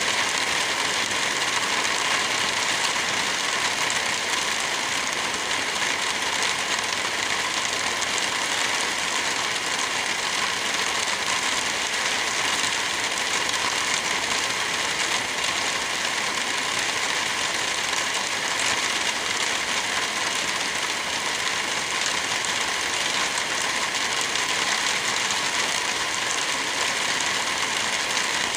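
Wind blowing steadily through forest trees, with light rain falling: an even, unbroken hiss.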